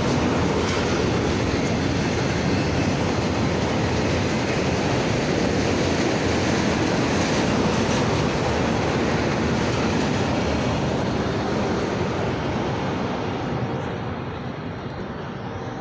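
Freight train cars rolling past on the rails, a steady rumble of wheels on track that fades over the last few seconds as the train moves away.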